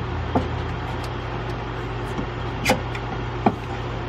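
A few sharp clicks and knocks of tools and plastic parts being handled in an engine bay, the loudest a little past halfway, over a steady low hum.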